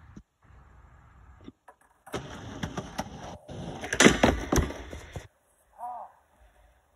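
Skateboard wheels rolling over wooden pallet planks with a clatter of knocks at the board gaps, then a run of loud slaps and clacks about four seconds in as the board kicks out from under the skater and lands upside down on the deck while he lands on his feet.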